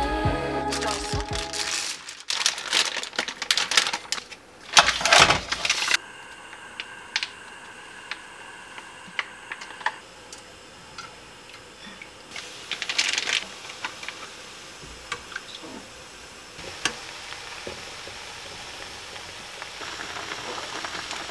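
Background music ends in the first two seconds, then a few seconds of loud clattering and rustling. After that, a spatula stirs and taps in a frying pan of tteokbokki in sauce, giving scattered sharp clicks and a short scraping stretch over a steady faint hum.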